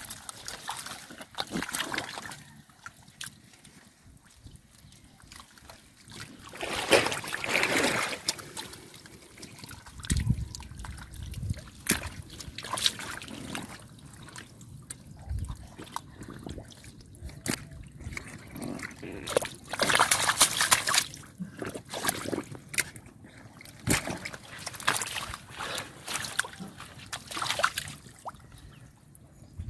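Shallow water splashing and sloshing in irregular bursts as someone wades and gropes by hand through it, with louder splashes about seven seconds in and again around twenty seconds.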